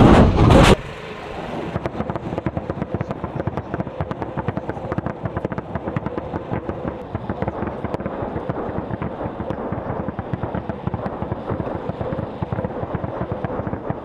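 Tornado-G multiple rocket launcher firing its last rockets in loud, rapid blasts that cut off under a second in, followed by a long, dense crackle of many distant rocket warheads exploding across the target area.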